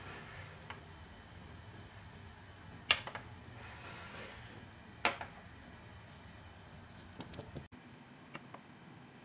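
Two sharp clinks of kitchenware, a steel ladle and a glass bowl of pancake batter being handled, about three and five seconds in, with a few lighter ticks. Under them a faint steady low hum that cuts off suddenly near the end.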